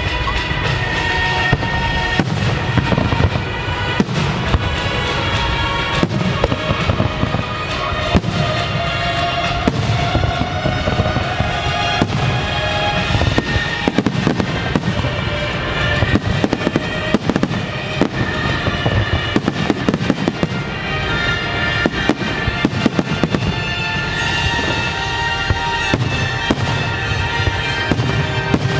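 Fireworks display: a dense string of shell bursts and crackling reports, many bangs a second, over loud accompanying music.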